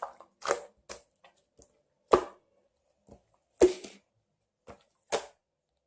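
A series of short, sharp knocks with silence between them; the three loudest come about a second and a half apart, with fainter ones in between.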